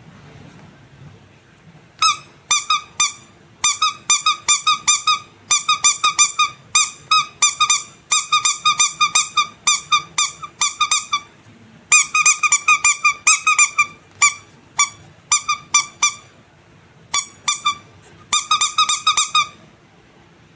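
Rubber squeaky animal toy squeezed over and over, giving quick runs of short high squeaks, about four or five a second. The squeaks start about two seconds in and stop briefly now and then between runs.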